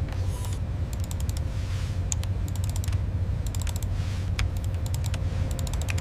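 Bursts of rapid clicking, in quick clusters every second or so, over a steady low hum.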